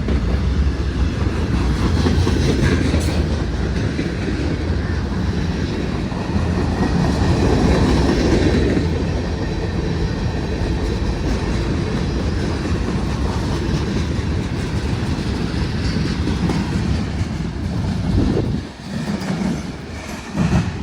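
CSX freight train's cars rolling past, a steady rumble with wheels clicking over the rail joints. The sound dips briefly and then surges again near the end.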